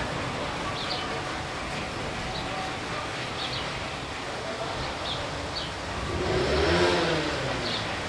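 House sparrows chirping now and then, short high chirps over a steady wash of city traffic noise. About six seconds in, a passing vehicle's engine swells and fades, the loudest sound here.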